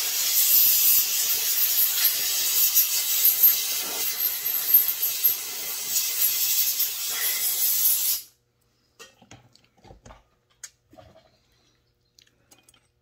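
Steady, loud hiss of a pressurised jet blowing through a Tillotson chainsaw carburetor to clean it and its inlet screen, cutting off suddenly about eight seconds in. Light clicks and taps of the small carburetor parts being handled follow.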